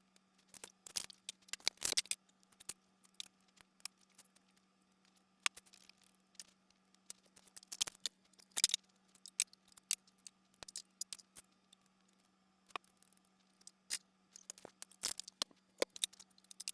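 Cooked rice and beans being dished into meal-prep containers: scattered, irregular clicks, taps and scrapes, over a faint steady low hum.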